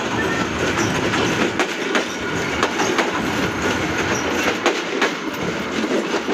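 Bangladesh Railway passenger coaches rolling past close by onto an open-deck railway bridge: a steady rumble of wheels on rail with irregular sharp clicks and clatter from the wheels striking rail joints.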